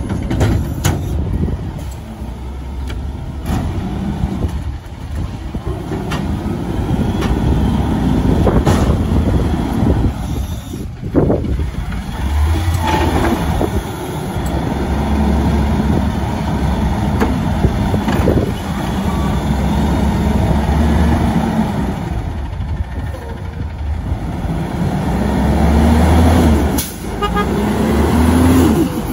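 Diesel front-loader garbage truck emptying a cart with the automated carry can on its forks. The engine revs up in long steady stretches to drive the hydraulics as the can is lifted over the cab and dumped. There are sharp clanks from the lifting gear and a hiss of air brakes, and near the end the truck pulls away.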